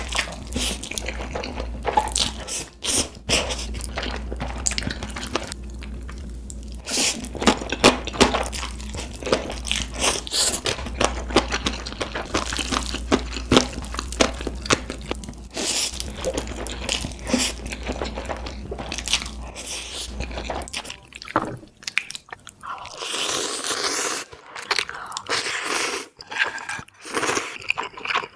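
Close-miked eating: crunchy bites and chewing, a dense run of crisp cracks. A steady low hum underneath stops about three-quarters of the way through.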